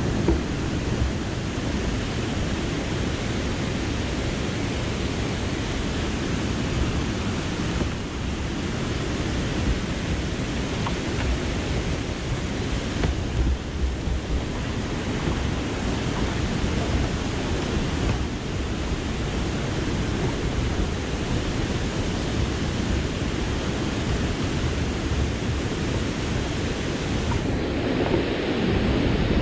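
Steady rushing of water pouring over a low concrete mill-dam spillway, an even, unbroken noise with the weight at the low end.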